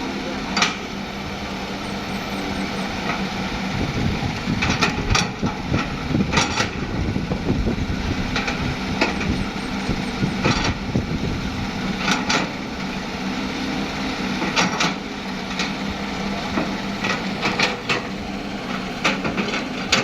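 Heavy-equipment diesel engine running steadily, with sharp knocks and clanks at irregular intervals, about one every second or two.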